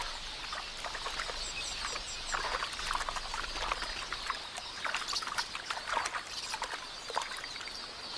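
Irregular splashing and sloshing of shallow water as helmeted terrapins thrash at a bird they have grabbed, with a few faint high bird chirps about a second and a half in.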